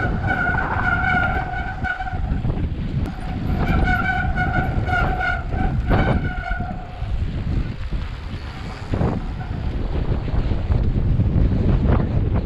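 Hope rear hub's freewheel buzzing in a steady high whine while the bike coasts downhill, twice: briefly near the start, then for about three seconds in the middle. Under it runs the rumble of tyres on a dusty dirt trail and wind on the helmet camera, with a few knocks over bumps.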